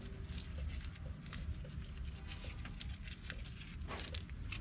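Fine sandpaper rubbing a car battery terminal clean, in faint, irregular scratching strokes.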